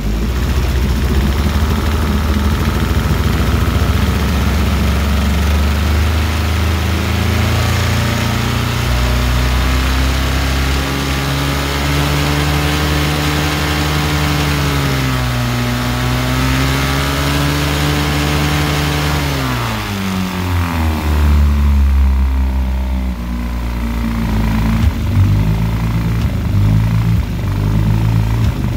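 1958 Johnson 18 hp FD-12 two-stroke twin outboard running in gear at full throttle, cold after a fresh carburetor rebuild, while the high-speed needle is leaned out. The revs climb and hold, dip briefly, then drop sharply about twenty seconds in, after which it runs slower and unevenly.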